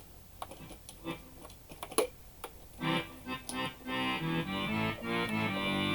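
Faint clicks of keys and buttons, one sharp click about two seconds in. From about three seconds in, a Roland FR-1x digital accordion plays a run of chords that sound normal rather than growling, now that it is back in piano-type mode.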